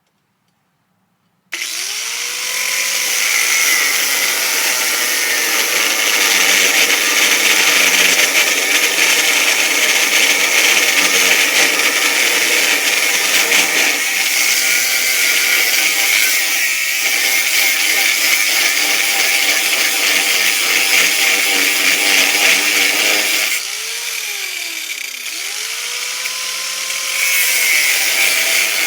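Drill Master 4-1/2-inch, 10,000 RPM angle grinder starting up about a second and a half in and cutting through solid steel bar: a loud, steady, high-pitched grinding whine. It eases off briefly near the end, then picks up again.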